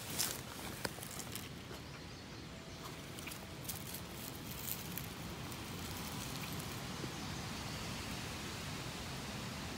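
Dry leaves and twigs rustling and crackling as the phone and a hand move close over the leaf litter, with scattered sharp snaps in the first few seconds. This gives way to a steady rushing hiss for the rest.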